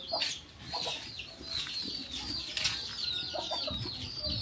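Birds chirping in rapid, repeated short notes, with a few lower clucking calls now and then and two sharp knocks, one near the start and one past the middle.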